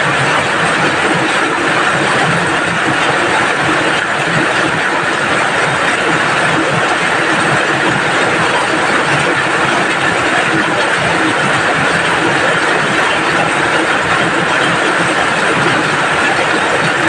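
Steady rain falling, an even, unbroken rushing hiss.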